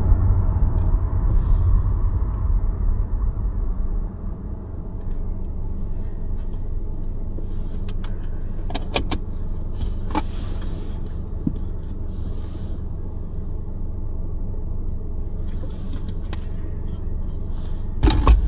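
Car driving, a steady low rumble of engine and road noise that is louder for the first few seconds, then settles. A few sharp clicks come about nine seconds in and again near the end.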